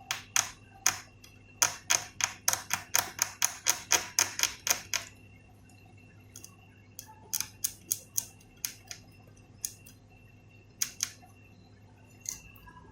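Quick series of small sharp clicks and taps, about four a second for the first five seconds, then scattered ones: hand tools working at a PS4 Pro's circuit board during a solder-and-jumper-wire repair of its power supply connector.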